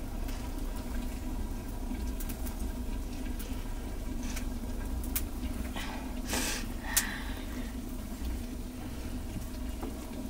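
Wood fire crackling with sharp ticks over a steady low hiss, under a flat pan of baking flatbread. About six seconds in, a brief soft rustle and pat as a stretched sheet of dough is laid out on a cloth bread cushion.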